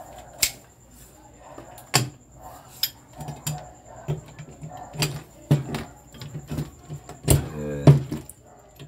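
Metal clicks and clacks of a long-handled lever rivet plier being handled, loaded with a thin blind rivet and set against a metal bracket. Near the end come two loud sharp clacks as the handles are squeezed to set the rivet.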